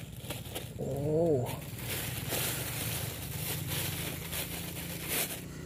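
Crinkling of a clear plastic bag and rustling of dry leaves as a freshly caught fish is handled, with a steady low hum underneath. About a second in there is a short wavering hum-like voice sound.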